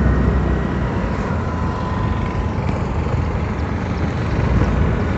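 Motorcycle being ridden along the road, a steady drone of engine and road noise heard from the rider's seat.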